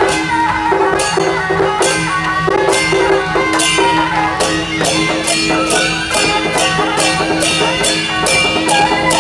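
Traditional processional music with percussion: sharp cymbal-like crashes, coming steadily about twice a second from about four seconds in, over a held tone and a melody line.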